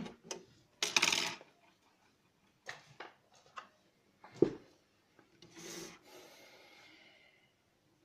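Handling noise: a router's circuit board and plastic case rubbing, scraping and clicking against a wooden desk as they are set down. The loudest sound is a sharp knock about halfway through.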